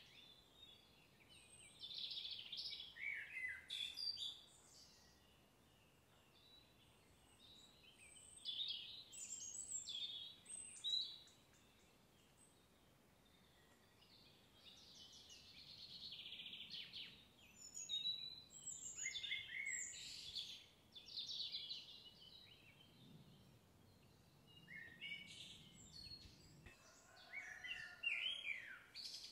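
Small songbirds singing and chirping in bouts of a few seconds, with quieter gaps between them, faint over a low outdoor background hiss.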